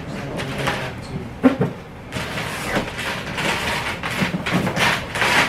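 A long cardboard shipping box being cut and torn open: a run of rasping, tearing scrapes as the cardboard gives, with a single sharp knock about one and a half seconds in.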